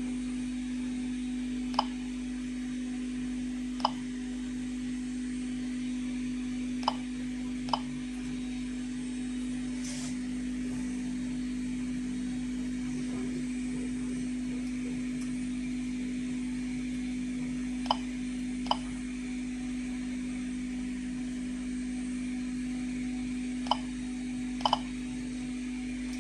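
Geiger-counter dosimeter giving short click-beeps at irregular intervals, about nine in twenty-five seconds: a low count rate, with the gamma source under a lid that the tester says it does not get through. A steady low hum runs underneath.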